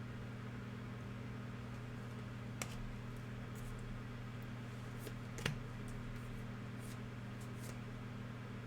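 Trading cards being handled between packs: two light clicks and a few faint brief rustles over a steady low electrical hum.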